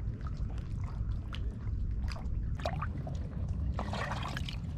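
Small river waves lapping and trickling against shoreline rocks, with a fuller wash of water about four seconds in, over a steady low rumble.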